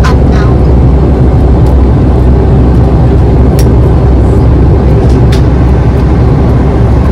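Steady, loud low rumble of an airliner cabin in flight: jet engine and airflow noise heard from a window seat. A few light clicks are heard, the most prominent about three and a half and five and a half seconds in.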